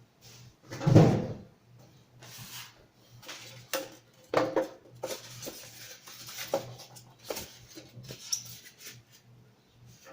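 Handling noises as an amplifier is unboxed and moved about: a heavy thump about a second in, then scattered knocks, clicks and rustling.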